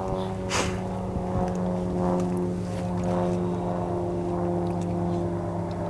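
Engine of a large RC model aircraft running steadily at a low idle on the ground, its pitch sagging slightly.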